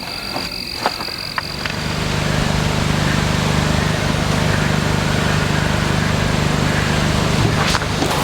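Portable sawmill's engine running steadily with a low hum, coming in about a second and a half in, with the noise of the cut over it. Before that, a few sharp clicks and a thin high whine.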